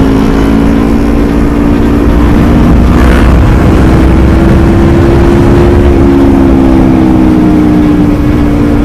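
Motorcycle engine, the rider's Yamaha R250 parallel-twin, running at steady high revs while riding, its pitch climbing slowly and then easing off a little about six seconds in, under heavy wind rumble on the helmet microphone.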